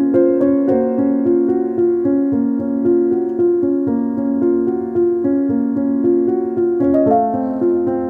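Background music played on a keyboard instrument, with a steady stream of changing notes.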